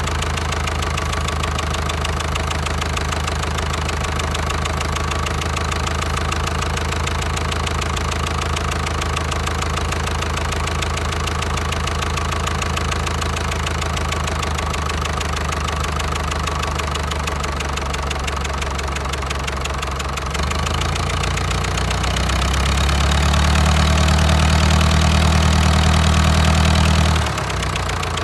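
Diesel engine running steadily with a rapid, regular firing beat. About two-thirds of the way through its speed rises and it runs louder for a few seconds, then it drops back abruptly near the end. The engine's injection pump is being set.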